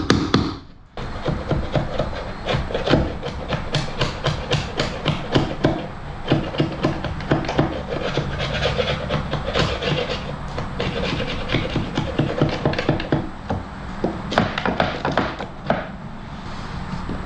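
A hand tool working timber in rapid back-and-forth rubbing strokes, about three a second, shaping a piece of wood. The strokes break off briefly about a second in.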